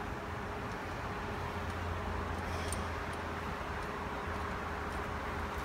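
Steady low workshop hum with a few faint metallic clicks as a T-handle hex key turns the bolts that hold the steering wheel to the column.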